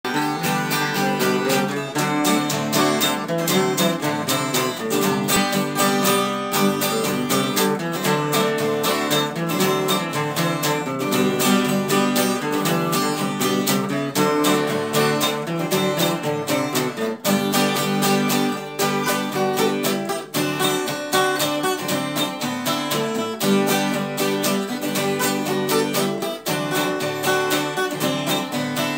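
Two acoustic guitars playing together in a música sertaneja instrumental introduction, picked and strummed steadily without vocals.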